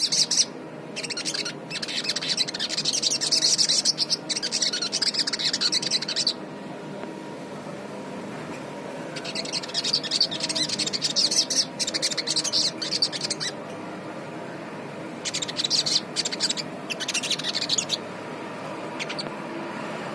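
A sogon songbird singing vigorously in three long bouts of rapid, high-pitched chattering song with short pauses between, over a steady low background hum.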